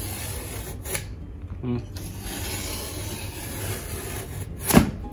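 Utility knife blade drawn through two stacked ceiling tiles along a metal straightedge: scraping cut strokes, a short one and then a longer one, with a sharp knock near the end.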